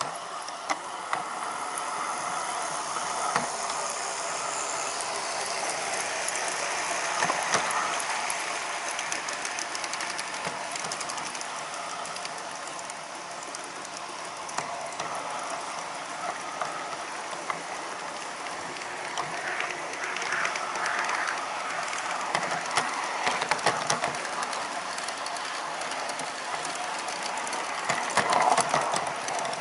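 Large-scale garden-railway model freight train running on the track: a steady mechanical whir with many small wheel clicks, growing louder as the train passes near the end.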